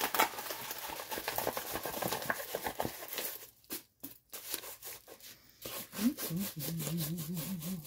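Rustling and crinkling of a rolled diamond painting canvas and its plastic film being handled and unrolled, with quick paper-and-plastic crackles, a short pause about halfway, then more rustling. In the last two seconds a low wavering hum of a voice.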